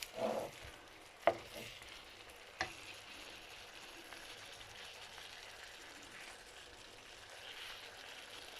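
Chicken and vegetables sizzling in a wok as they are stir-fried, a steady hiss. A spatula strikes the wok three times in the first few seconds, the loudest knock about a second in.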